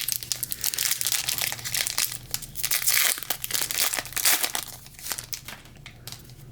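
Foil wrapper of a trading card pack crinkling and being torn open, dense crackling that dies down about five seconds in.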